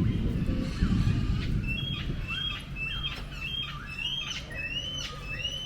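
A bird calling with a short chirp repeated over and over, about two to three a second, starting about a second and a half in. A low rumbling noise runs underneath, strongest at the start.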